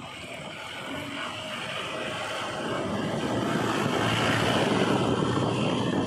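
Heavy machine's diesel engine running, growing steadily louder over the first few seconds and then holding steady.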